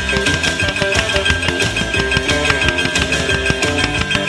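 Loud music playing, with many short, sharp fireworks pops from the launches mixed in.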